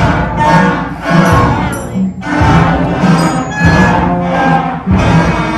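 Loud orchestral-sounding music, with bowed strings over a heavy bass line, its phrases restarting about every second and a quarter.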